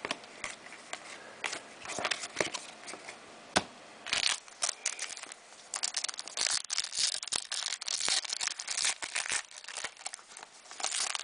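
Foil wrapper of a trading-card pack crinkling and tearing as it is opened, with a few sharp clicks of handling, then dense crackling from about four seconds in.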